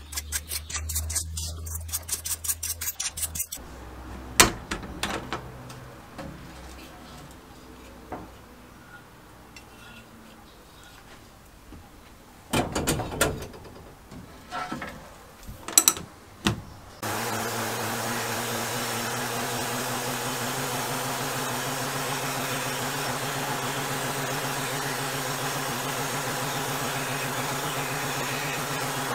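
A brush scrubbing a small engine casting in a bowl of cleaning solvent, in quick rhythmic strokes that stop a few seconds in. A few knocks and some clatter follow. A little past halfway, a sandblast cabinet starts up with a steady hiss and hum as an aluminium engine cover is blasted.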